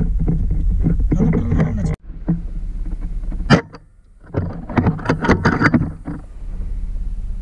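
Steady low engine hum that breaks off abruptly about two seconds in. About a second and a half later comes a single sharp crack, typical of a PCP air rifle shot, after which the hum returns.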